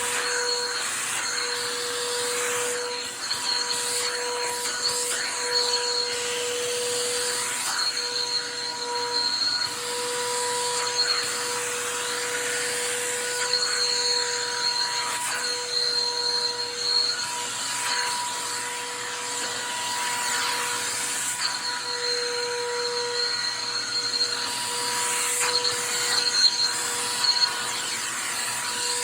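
Stanley 4-gallon wet/dry shop vacuum running steadily, a constant rushing of air with a high motor whine, the suction sound wavering a little as it works.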